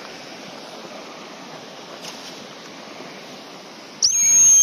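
A plastic Acme 210.5 gundog whistle blown as one steady high-pitched blast about a second long near the end, the kind of single long blast used as a stop whistle. Before it there is a steady rush of background noise.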